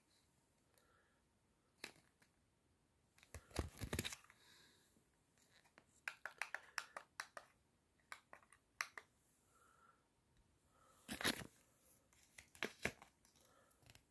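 Faint handling noise: paper cards rustling and crinkling in the hand, with scattered sharp clicks in a few short clusters.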